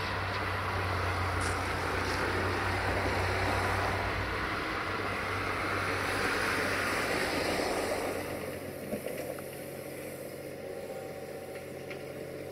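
Caterpillar 302.5C mini excavator's diesel engine running steadily while the machine digs sand. The sound drops to a lower level about eight seconds in.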